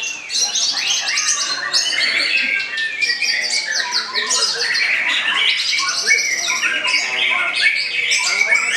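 White-rumped shamas singing in contest cages: a dense, unbroken stream of fast, varied whistles, chirps and trills, with several birds' phrases overlapping.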